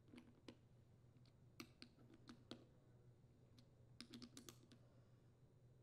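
Faint clicking of a socket ratchet tightening the float bowl nut on a Briggs & Stratton small-engine carburetor, in three short runs of quick clicks.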